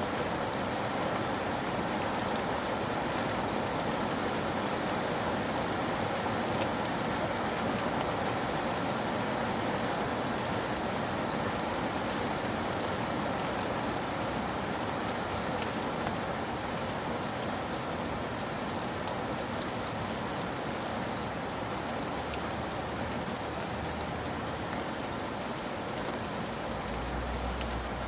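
Steady rain falling, with an even hiss and scattered small drop ticks.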